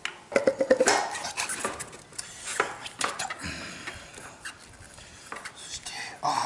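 Metal tools and parts clinking and clattering as a motorcycle's front wheel and drum brake are worked on by hand. A quick run of knocks comes with a brief metallic ring about half a second in, followed by scattered lighter clicks.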